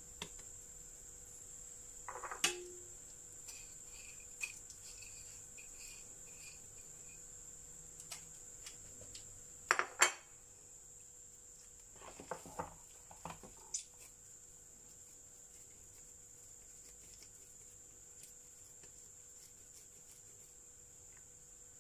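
Scattered light clinks and knocks of a ceramic plate and a baking tray set down and moved on a stone countertop while dough is shaped and coated in seeds. The loudest is a double knock about ten seconds in, with a run of smaller clicks a couple of seconds later, over a faint steady high-pitched whine.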